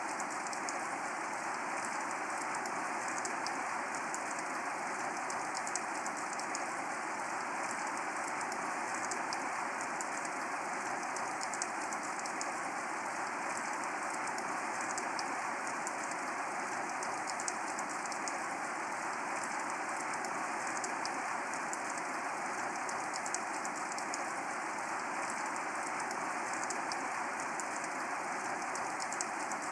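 Steady rain falling: an even hiss with the fine patter of many individual drops, holding constant throughout.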